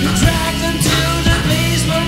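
Blues-rock song playing, with drums striking about twice a second under sustained instrumental lines.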